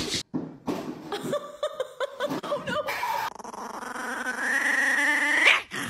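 A chihuahua vocalizing: after some short calls, one long drawn-out whining grumble that climbs in pitch over the last couple of seconds and then stops.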